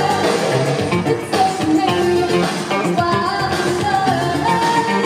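Live synthpop band playing a song: electric guitar, bass, drums and keyboard under a sung vocal melody, with a steady beat.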